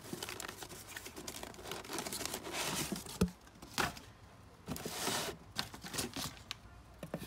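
Packaging crinkling and rustling as a boxed starter motor is unwrapped by hand, with scattered clicks and a short knock about three seconds in.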